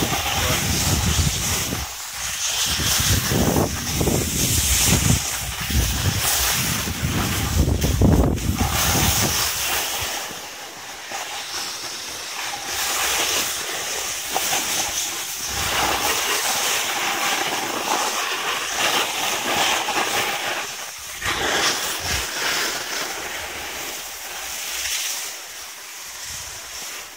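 Wind buffeting the microphone while riding downhill, over the steady hiss and scrape of snowboards sliding on snow. The low rumble of the wind drops away about ten seconds in, and the snow hiss goes on, swelling and fading with the turns.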